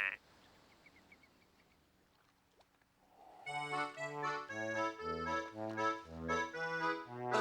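After a few seconds of near quiet, a concertina starts playing about three and a half seconds in: a song introduction in a steady rhythm of alternating bass notes and chords.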